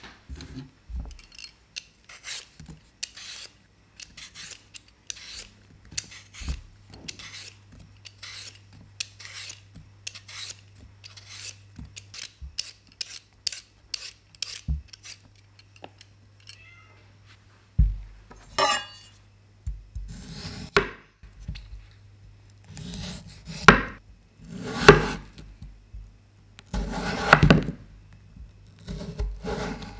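Vegetable peeler scraping the skin off a raw potato in short, even strokes, about one or two a second. Past the middle this gives way to a kitchen knife slicing through raw potato onto a wooden cutting board, with louder cuts landing on the board.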